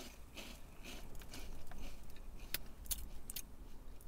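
A person chewing crunchy TGI Fridays onion ring snacks, with a few sharp crunches scattered through the chewing.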